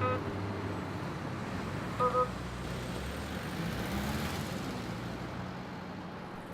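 Recreated street ambience of a motor car engine running with traffic noise, plus a short double toot about two seconds in.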